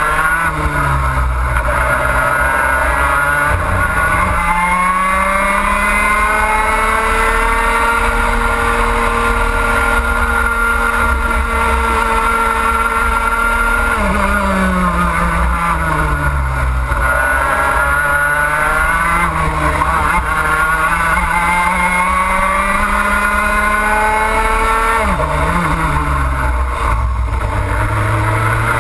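Two-stroke racing kart engine heard from onboard, revving up along the straights and dropping sharply off the throttle into the corners. It makes a long climb and holds near the top for several seconds, drops suddenly about halfway through, climbs again, and drops once more near the end.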